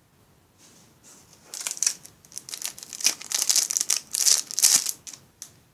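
Thin clear plastic wrapping crinkling in irregular bursts as it is handled and pulled off a small infrared remote control and cable. It starts about half a second in, is loudest in the second half, and stops just before the end.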